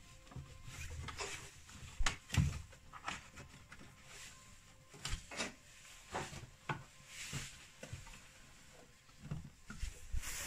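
Plastic air filter housing and intake duct of a Mazda MX-5 NA being handled and refitted by hand: scattered clicks and knocks, the loudest pair about two seconds in.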